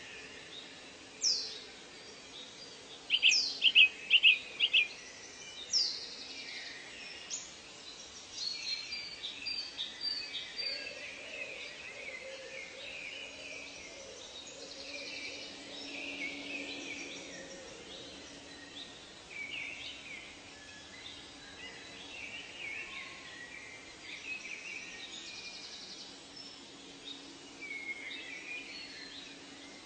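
Several wild birds calling and singing over a steady background hiss, with a few loud, sharp downward-sweeping calls and a quick run of repeated notes in the first six seconds, then softer scattered chirps.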